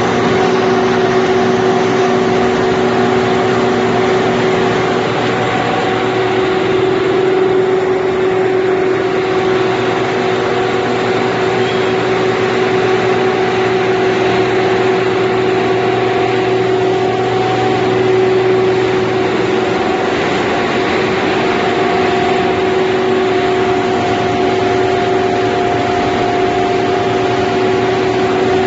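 Corn puffed snack extrusion line running: a steady, loud machinery noise from its electric motors, with several held hum tones over it.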